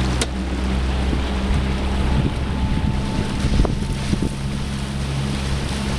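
A boat's engine running steadily with a low hum, under wind buffeting the microphone and water washing past. Two short knocks, one just after the start and one about three and a half seconds in.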